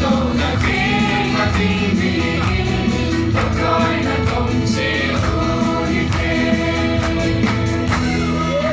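Music with a choir singing, in a gospel or Christian style, over a steady beat.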